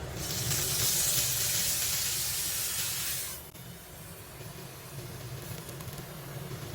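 Potstickers frying in a hot pan: a loud hiss of steam and sizzling for about three seconds, which drops suddenly to a quieter, steady sizzle.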